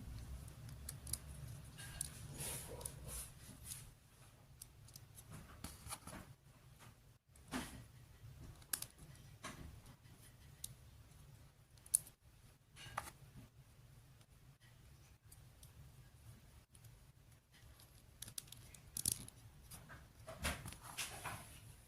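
Hands handling and fitting small plastic toy pieces: scattered light clicks and short rustles at an irregular pace, with one sharper click about halfway through.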